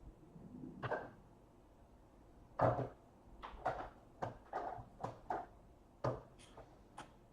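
Irregular light knocks and clicks of trading cards, card holders and packaging being handled and set down on a table: one about a second in, then a run of roughly two a second from about two and a half seconds to near the end.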